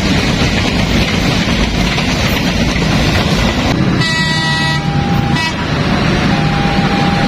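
Train passing close by with a loud, steady rumble. About four seconds in, the locomotive horn sounds for about a second and a half.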